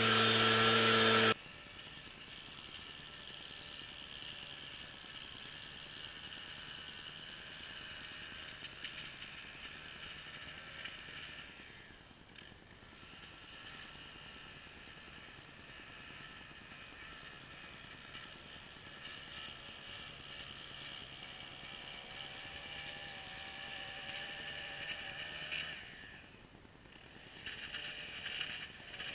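Music cuts off about a second in, giving way to the steady running of a small petrol engine on lawn equipment, which dips briefly twice.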